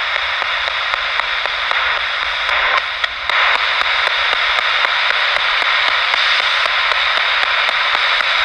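Radio static from a scanning spirit-box radio sweeping through frequencies: a steady hiss broken by regular clicks a few times a second, each a step to the next frequency.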